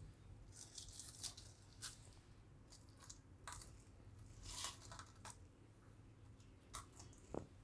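Faint, scattered crackles and light clicks as a stack of crisp deep-fried pakwan flatbreads is handled on a plate.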